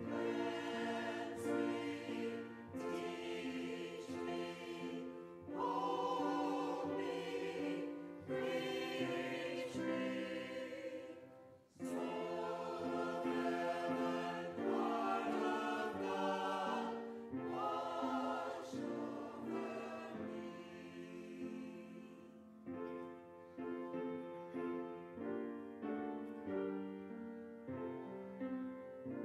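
Small mixed church choir of men's and women's voices singing a hymn-like anthem in harmony, phrase by phrase with short breaks between. Through the last several seconds the music is softer, with a regular pulse of short chords.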